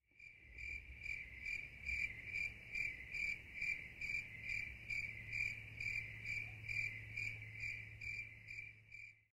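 A cricket chirping in an even rhythm, a little over two chirps a second, over a low steady hum. It fades in at the start and stops abruptly just before the end.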